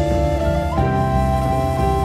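Instrumental music of held notes over sustained chords, moving to a new chord about three quarters of a second in.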